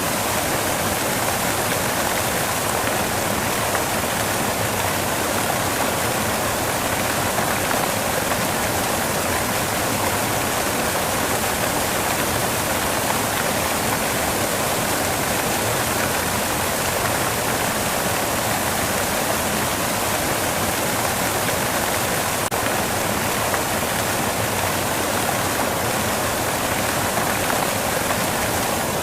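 Steady white noise: an even, unchanging hiss, strongest in the middle and upper range, with little bass.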